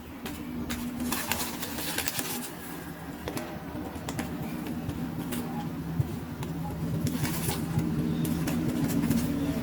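Small plastic toy pieces clicking and tapping as they are handled, over a steady low hum that grows louder about four seconds in.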